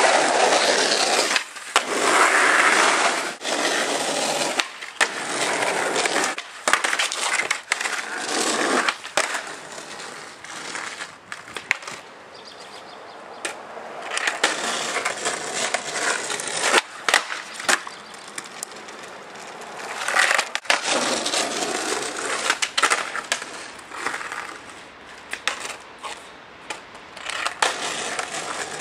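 Skateboard wheels rolling over rough asphalt, broken by sharp clacks of the tail popping and the board landing on ollies and tre flips. The rolling is loud at first, drops to a quieter stretch in the middle, and picks up again later with more clacks.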